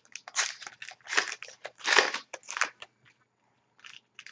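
Trading-card pack wrapper crinkling as it is handled: a run of short, uneven rustles for about three seconds, then two faint ones near the end.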